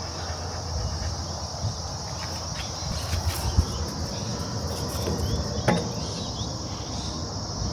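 Steady high-pitched chorus of insects, crickets or cicadas, with a low rumble underneath.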